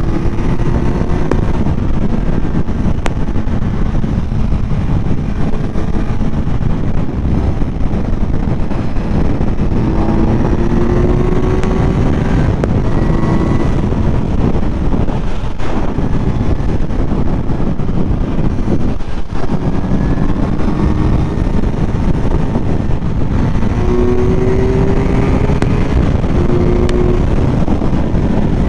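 Kawasaki Z900's inline-four engine running at highway speed under heavy wind noise, its engine note rising in short steps a few times.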